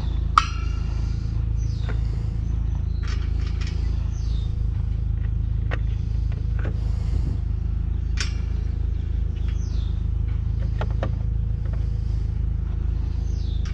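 Sockets and hand tools clinking and rattling in short sharp clicks while the right wrench size is hunted for, over a steady low rumble. A few short falling chirps from birds come through.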